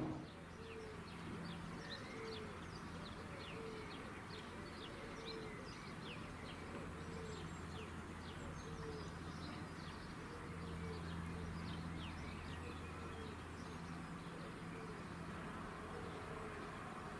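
Small birds chirping and twittering in many quick, high, falling notes, over a faint, steady low hum.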